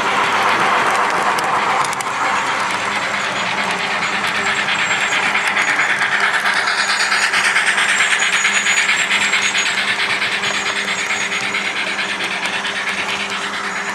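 A model train running on the layout track: wheels clicking quickly over the rails over a steady motor hum. It grows louder toward the middle and then fades as it passes close by.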